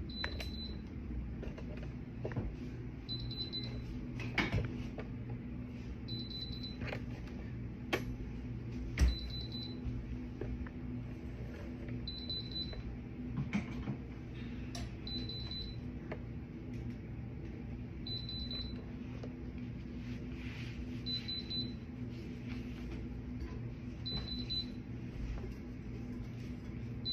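Heat press beeping: a short high beep about every three seconds, its alert that it is up to temperature and ready. A few handling knocks over a steady low hum.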